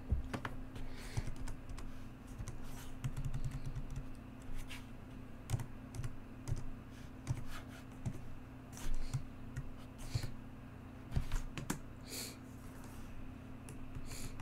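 Computer keyboard keystrokes, irregular and a few at a time, with scattered short clicks, over a faint steady low hum.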